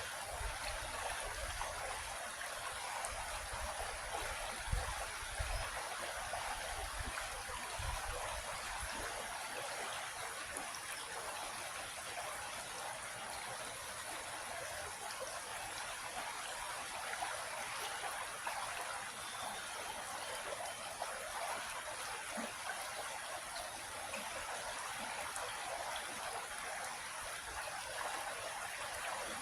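Small creek flowing steadily, an even rushing and trickling of water. Low rumbling gusts come and go in the first nine seconds, then stop.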